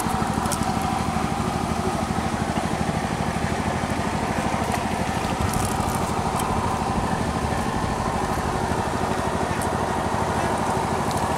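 An engine running steadily, a low even drone with no change in speed, with a few faint clicks over it.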